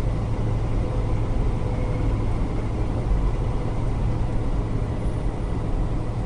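Steady engine and road noise of a vehicle cruising on a highway, heard from inside the cab, with a strong low hum.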